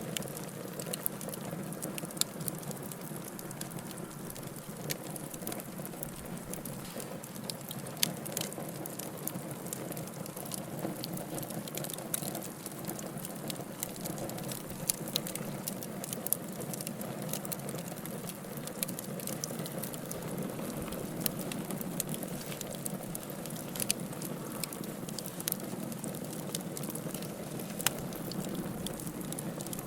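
Wood fire burning in a fireplace: a steady hiss with frequent small crackles and occasional louder pops, a few seconds apart.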